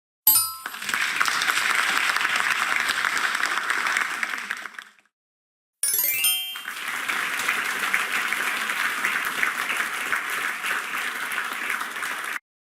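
Two "correct answer" feedback sound effects one after the other: each is a short bright chime followed by applause. The second chime is a quick rising run of notes, and its applause stops abruptly.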